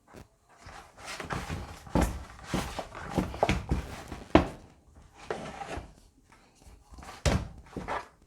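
Wooden turning stick knocking and thudding irregularly against the plate as stiff pounded-yam dough made from yam flour is turned and pressed. The loudest thuds come at about 2, 4.5 and 7 seconds.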